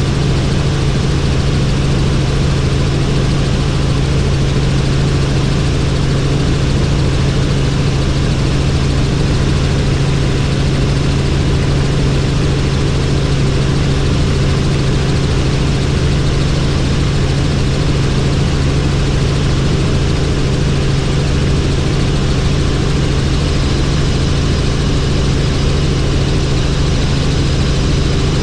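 Helicopter in flight: steady engine and rotor noise with a strong low hum.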